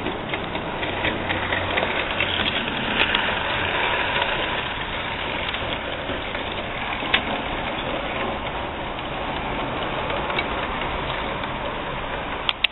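HO-scale Bachmann 4-8-4 steam locomotive and its passenger cars running past close by: a steady rumble of the model's motor and wheels on the track, with a few sharp clicks. The sound drops away suddenly at the very end as the last car goes by.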